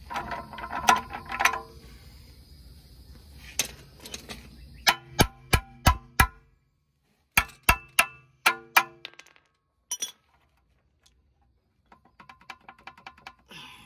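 A hand ratchet wrench working on a steering knuckle arm's nuts, with sharp, ringing metal clinks of the steel wrench against the fittings: a cluster at the start, a run of nine or so clinks in the middle, and a quick ratcheting tick near the end.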